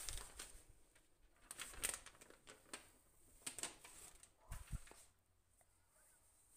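Faint rustling and crinkling of parchment baking paper in short scattered bursts as a baked génoise sponge sheet is flipped onto a fresh sheet and the old baking paper is peeled off its top.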